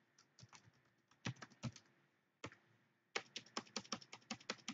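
Computer keyboard being typed on as an email address and password are entered: scattered keystrokes at first, then a quick, even run of keystrokes in the last second and a half.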